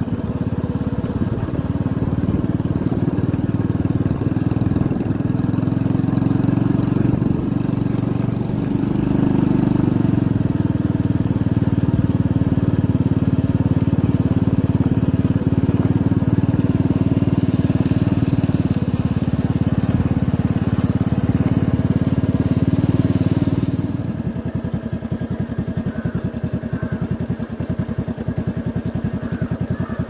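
Motorcycle engine running steadily while riding, loudest in the middle stretch, then dropping to a slower, quieter run about 24 seconds in as the bike eases off.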